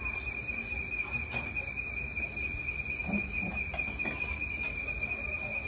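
Steady, unbroken high trilling of crickets at night, with a few light knocks of bowls and dishes being set down on a metal table.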